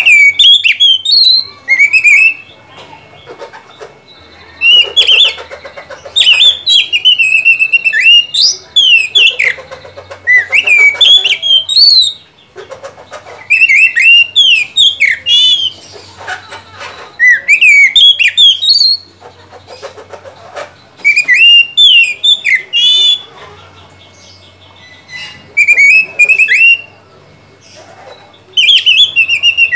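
Oriental magpie-robin (kacer) singing loudly in repeated phrases of quick, rising and falling whistled notes, about ten phrases with short pauses between.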